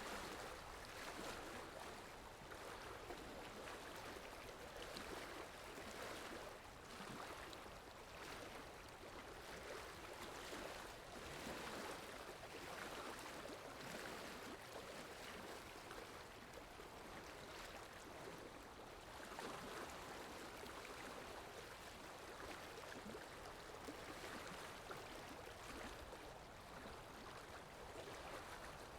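Faint, steady wash of sea water, swelling and easing every few seconds.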